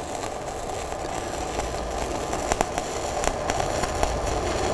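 TIG welding arc at 130 amps shielded with 75% argon / 25% CO2 mix gas instead of straight argon. It runs with a steady hiss and irregular crackling pops that come more often from about halfway in. The wrong shielding gas makes the arc spatter and lay a messy weld.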